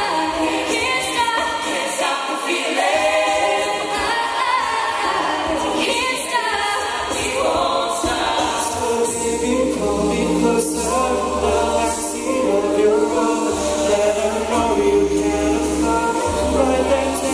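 Mixed-voice a cappella group singing live into microphones, several parts in harmony. A deep bass voice comes in about halfway through.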